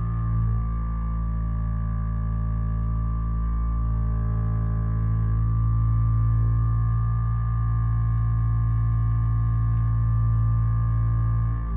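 Hyperice Vyper 2 vibrating foam roller's motor running, a steady low hum with a fainter higher tone above it, with feet resting on the roller.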